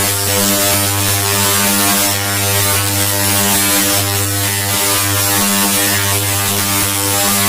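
Loud, heavily distorted electronic buzzing drone made by a digital 'extreme rage' audio effect. It holds one low pitch with a harsh hiss over it, wavering a little every second or two.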